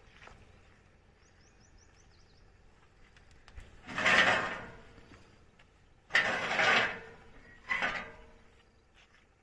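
Three short bursts of rustling and scraping as a tractor's rotary tiller is handled at its rear grate, where grass and weeds are caught, about four, six and seven and a half seconds in; no engine is running.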